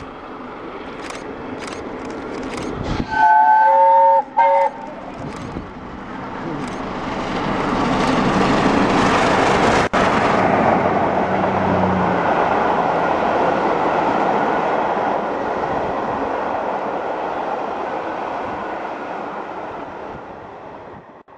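Steam locomotive Tornado, a Peppercorn A1 Pacific, approaching at speed on the main line. About three seconds in it sounds its whistle: a long blast with several notes, then a short one. It then passes close by, its exhaust and the rumble of the coaches swelling to a peak and fading away as the train runs past.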